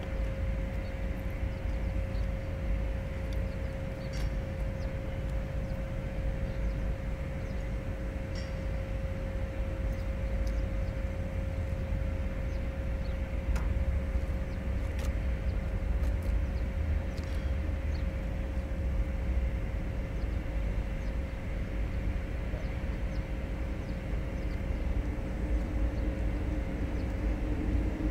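Low, steady engine rumble with a steady hum above it and a few faint clicks. Near the end a second drone joins as a diesel freight locomotive approaches.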